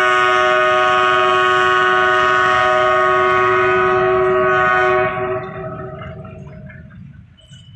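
Locomotive horn held in one long blast of several tones sounding together, over the running rumble of the passenger train. The horn cuts off about five seconds in, and the train's rumble then fades as it moves away.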